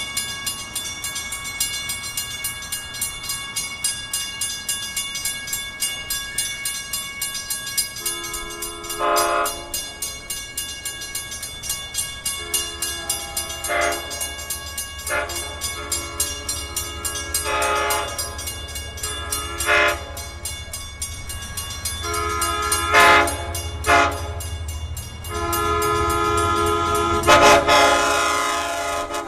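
Grade-crossing bell ringing in a fast steady tick, about three strikes a second, while an approaching LIRR diesel locomotive sounds its air horn in a series of long and short blasts from about eight seconds in, the last one held near the end. A low train rumble grows underneath as the train nears the crossing.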